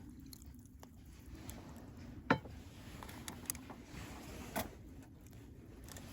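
Campfire cooking: scattered sharp clicks and pops over a low steady rumble, with the loudest pop about two seconds in and another a couple of seconds later.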